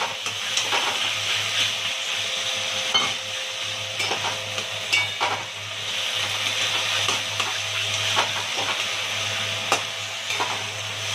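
Taro greens and a hilsa fish head sizzling steadily as they fry in oil in a metal kadai, while a metal spatula stirs and scrapes through them, with scattered sharp clicks of spatula on pan.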